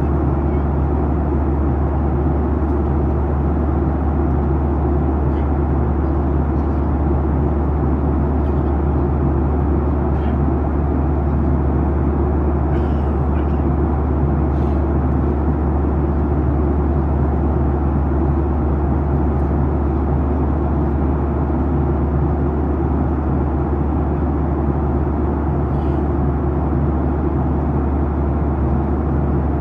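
Boeing 737-900ER cabin noise in flight: a steady low drone with a hiss of airflow over it, unchanging throughout. Now and then a faint tick sounds through it.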